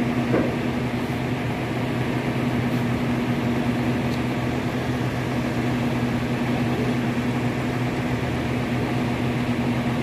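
Diesel engines of a concrete pump truck and transit mixer running, a steady drone with an even low hum.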